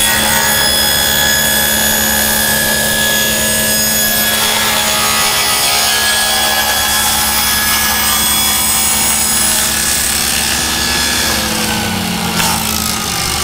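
Table saw running and cutting through a wooden blank pushed along an angle-cutting sled jig, a steady loud whine with a low hum. Near the end its pitch falls as the saw winds down.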